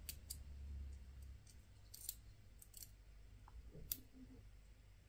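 Faint, scattered small clicks as the screw-on end of a steel wire keyring cable is handled and twisted together by hand.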